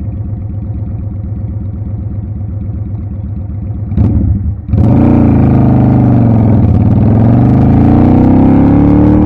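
Motorcycle engine heard from the rider's helmet camera. It runs steadily at low revs, then about halfway through gets much louder, its pitch rising and falling as the bike speeds up and slows.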